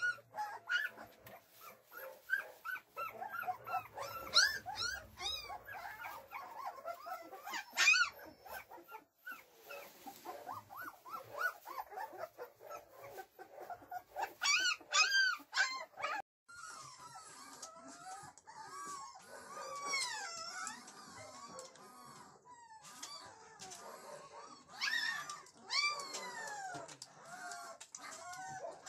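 A litter of young puppies whining and squealing, many short rising-and-falling cries overlapping one another. About sixteen seconds in the sound breaks off and changes to fewer, longer falling whines.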